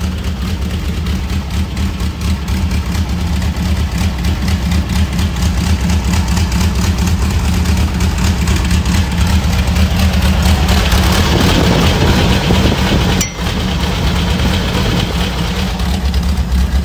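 Brantly B2 helicopter's four-cylinder piston engine running steadily on a ground run, its first run in years after the fuel lines were cleaned and the filters replaced. The sound briefly dips once near the end.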